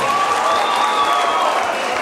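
Concert audience applauding, with a few long, steady high tones held over the clapping.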